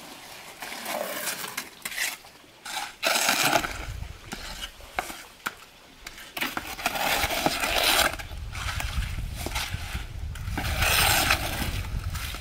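A steel shovel scraping and scooping wet concrete mix in a metal wheelbarrow, with a trowel rasping over fresh concrete. There are three long, rough scrapes, about three, seven and eleven seconds in.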